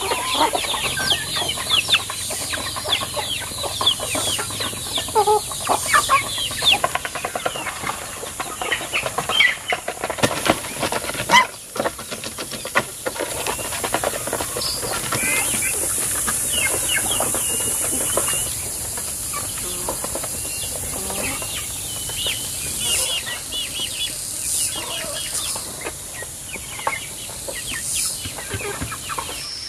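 Free-ranging chickens clucking and chicks peeping as the flock feeds, with many quick downward-sliding calls, busiest in the first several seconds and then coming and going. A steady high hiss runs underneath, and there is one sharp knock midway.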